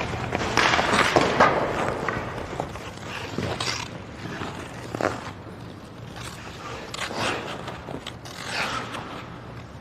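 Ice hockey skate blades scraping and carving across ice in a series of swishes, with a few sharp knocks; louder for the first couple of seconds, then fainter.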